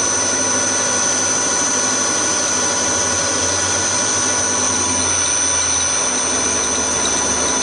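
Hafco HM 54GV milling machine running an end mill through an aluminium bracket as the table feeds along: a steady high-pitched whine from the machine over the noise of the cut.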